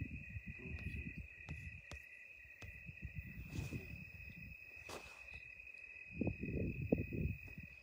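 Crickets trilling in a steady, unbroken high chorus, over low rumbling handling noise and a few brief crackles.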